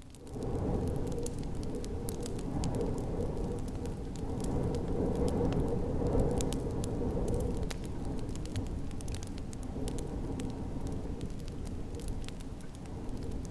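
Wood fire crackling, with scattered sharp pops and snaps over a steady low rumble of snowstorm wind that swells up just after the start.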